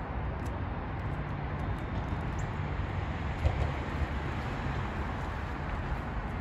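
Steady low outdoor rumble with a brief thump about three and a half seconds in.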